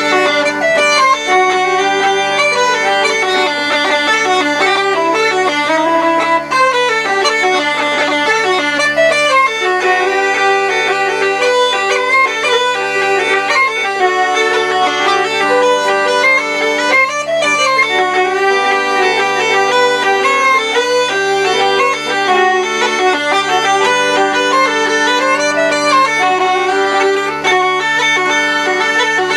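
Uilleann pipes and fiddle playing an Irish jig together: a quick, ornamented melody over the pipes' steady low drone, without a break.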